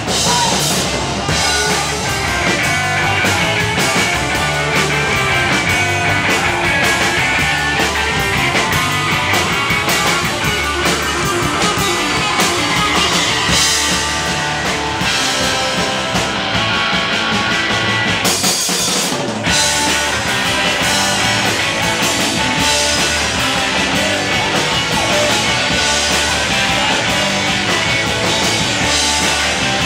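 Live rock band playing loudly: distorted electric guitars, electric bass and a drum kit, with a brief break in the bass and drums a little past halfway.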